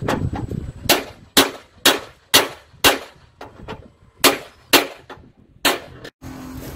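Hammer striking metal: about nine sharp, ringing clangs, many in pairs about half a second apart, with a pause of over a second midway. The blows are driving a metal fitting a few millimetres at a time.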